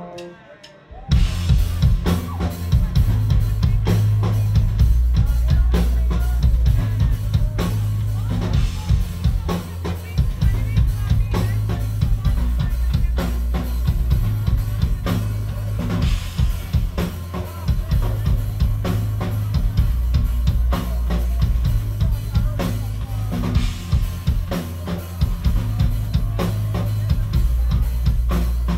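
Live rock band with drum kit, bass guitar and electric guitars playing loud: a few held tones give way about a second in to the full band coming in all at once, with steady drums and heavy bass.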